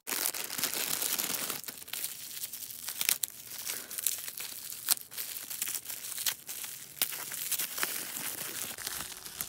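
Hands unwrapping a small package: the wrapping crinkles and tears in an irregular run of crackles and snaps.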